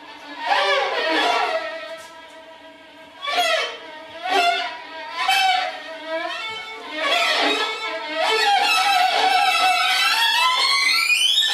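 Pitched instrumental tones in short sliding phrases, then a sustained tone that climbs steadily in pitch near the end.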